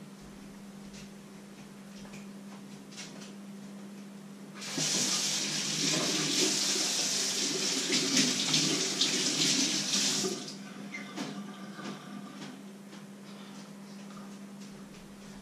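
Kitchen tap running into a steel sink for about six seconds. It starts about four and a half seconds in and is shut off near the ten-second mark, with a few light clicks and knocks of handling before and after.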